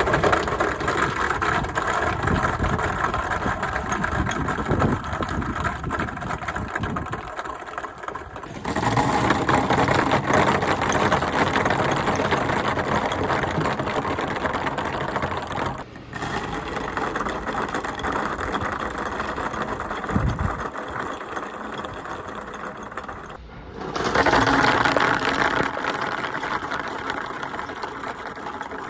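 Many ping pong balls clattering and clicking as they roll and bounce down a children's slide, a dense rapid rattle. It comes in four runs that break off abruptly, about a third, halfway and three quarters of the way through; each run starts loudest and thins out.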